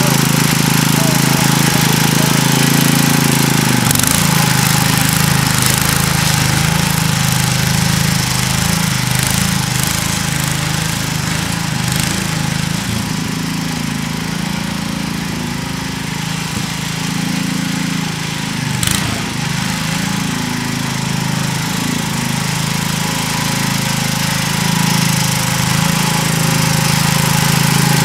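Sears ST16 garden tractor engine running steadily, its note wavering as the load changes, with a few sharp knocks.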